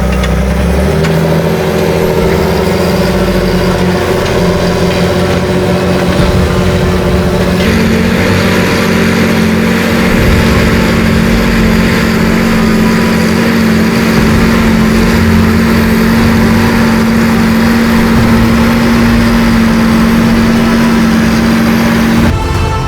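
John Deere 8430 tractor's six-cylinder diesel engine running steadily under heavy load, pulling a six-furrow plow through very hard, dry ground. The engine note shifts about seven seconds in.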